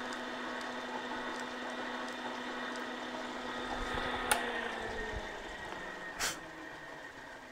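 Bridgeport milling machine's spindle running with a steady hum and whine, its left-hand drill bit raised clear of the work. About four seconds in there is a sharp click, and then the pitch falls as the spindle winds down, with a brief hiss near the end.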